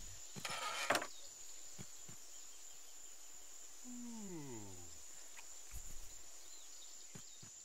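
A small wooden door scraping shut with a knock about a second in, then a cartoon character's yawn that slides down in pitch about four seconds in.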